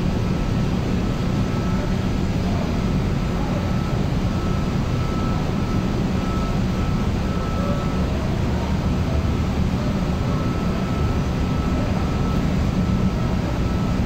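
Machinery of a chilled-water air-conditioning plant running: a steady drone with a faint high whine above it.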